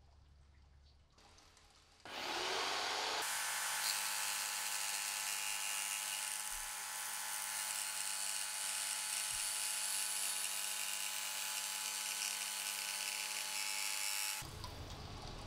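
Table-mounted jigsaw with a plastic-cutting blade starting up about two seconds in and running steadily with a whine as it crosscuts a 3 mm clear acrylic plate, then switching off abruptly near the end.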